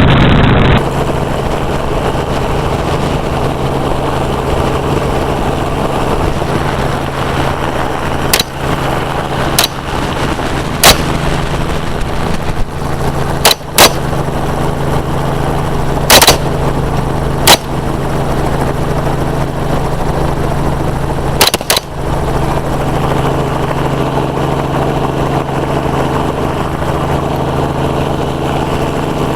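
Helicopter's steady engine and rotor drone with about nine gunshots fired from it, single shots and quick pairs, between about 8 and 22 seconds in.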